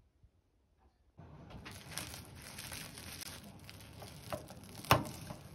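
Plastic cling wrap crinkling and rustling as cooked rice is squeezed out of it into a plastic lunch box, starting about a second in. One sharp knock near the end is the loudest sound.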